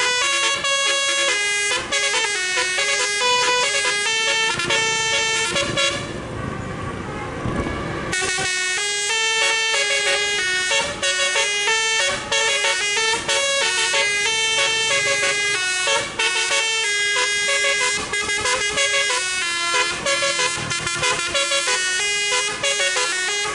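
A bus's 'basuri' telolet horn, a set of air horns playing a fast tune of stepping notes. About six seconds in the tune breaks for roughly two seconds of hissing noise, then resumes.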